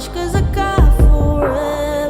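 Background music with a steady beat, a heavy bass and a sung melody.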